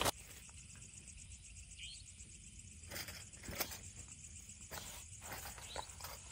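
Quiet night ambience: a faint, steady high insect chirring, with a few soft clicks and knocks from tableware being handled.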